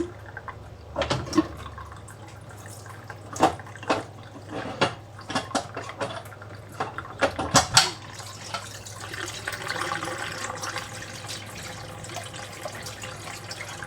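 Water draining from a small hand-powered washing machine through its newly fitted drain pipe. A run of sharp knocks and clatters comes in the first half, and a steady rush of running water follows for the second half.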